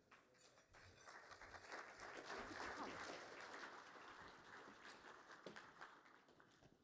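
Faint audience applause in a conference hall. It builds over the first two seconds, peaks, and dies away near the end.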